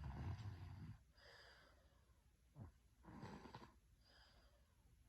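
A person snoring: a low snore at the start, then an airy breath out, and a second, shorter snore a little past the middle followed by another breathy exhale.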